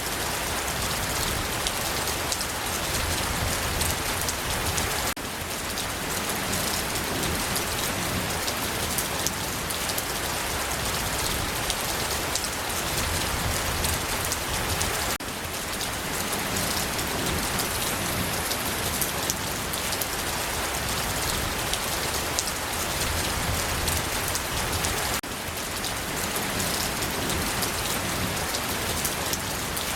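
Steady rain falling: an even hiss with many small, distinct drop hits. The level dips briefly about every ten seconds.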